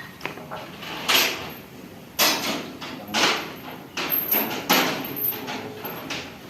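A series of sharp knocks and scraping clangs, each dying away quickly, roughly one a second and irregularly spaced.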